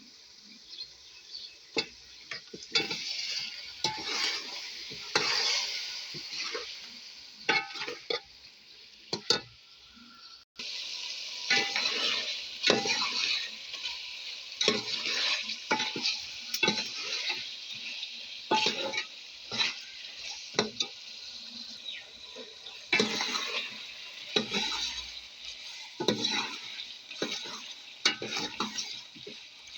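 Food sizzling in a hot pan while it is stirred, a utensil knocking and scraping against the pan again and again. There is a brief break about ten seconds in, then the sizzling and stirring go on.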